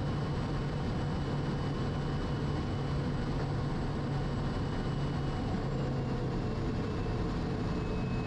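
Quest Kodiak's single turboprop engine and propeller running steadily at low power during the landing flare, a constant low hum with a faint high turbine whine.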